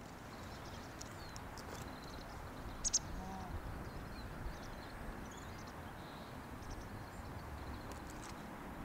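Open-air ambience: a steady low rumble of wind with faint bird chirps scattered through it, and one sharper, louder chirp about three seconds in.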